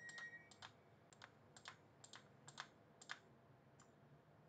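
Faint clicks of computer keys being pressed, about a dozen at uneven spacing, several in quick pairs, over near silence.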